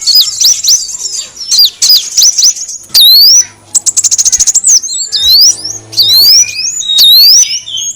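Kolibri wulung sunbird calls from a bird-lure recording. It opens with a fast run of sharp, high chirps. About three seconds in come a rising whistle and a quick buzzy trill, then upward-sliding whistled notes.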